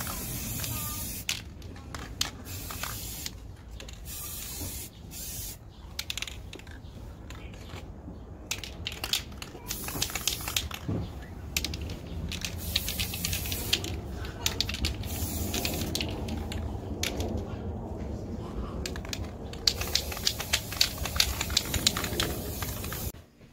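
Aerosol spray-paint can hissing in repeated bursts of varying length, stopping and starting between passes. A quick run of sharp clicks comes near the end.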